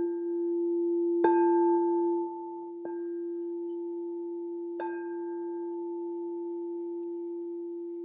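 Crystal singing bowl tuned to the heart chakra note, holding one steady ringing tone. It is struck lightly several times, about a second in, near three seconds and near five seconds, each strike adding higher ringing overtones that slowly fade. The strike about a second in is the loudest.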